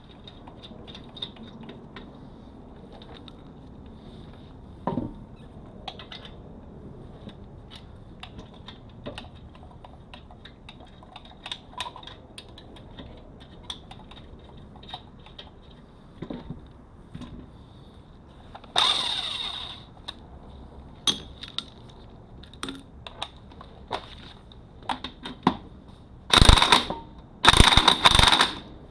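Light metallic clinks and clicks of lug nuts and a wheel being handled on a hub. These are followed by short, loud runs of a power tool, one about two-thirds of the way in and three in quick succession near the end, consistent with a cordless impact wrench spinning the lug nuts on.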